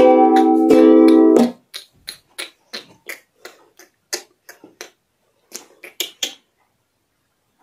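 Ukulele strummed in full chords, cut off suddenly about a second and a half in, followed by a run of quick sharp clicks, about four a second, that stops about six seconds in.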